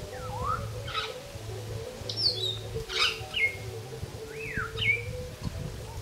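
Wild African grey parrots calling in their evening chorus: clear whistles that glide up and down in pitch, mixed with short sharp calls, over a steady low hum.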